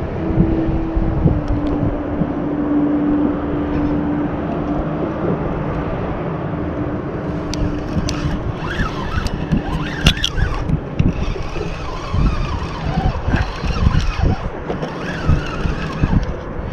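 Steady noise of road traffic with wind on the microphone; a passing vehicle's hum drops in pitch about a second in. Scattered short clicks and knocks come through in the second half.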